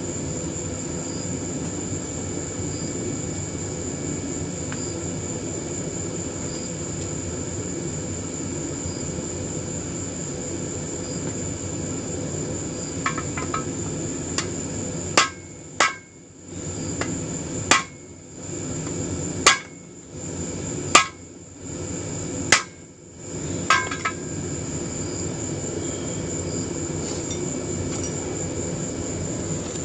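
Hand hammer striking metal on an anvil: a few light taps, then about seven sharp blows spaced a second and a half to two seconds apart, some ringing briefly, over a steady background noise.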